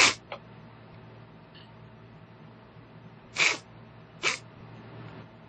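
A man sniffling sharply through his nose while crying: one short sniff at the start, then two more about a second apart a little past the middle.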